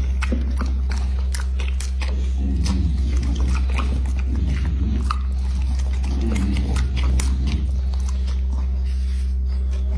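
Bully pit bull chewing a piece of pumpkin: irregular sharp clicks of chewing, over a steady low hum.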